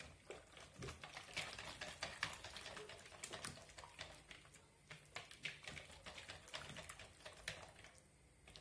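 Wire whisk beating a thin liquid mixture of milk, eggs and oil in a bowl: quick, irregular clicks and scrapes of the wires against the bowl's sides, getting fainter near the end.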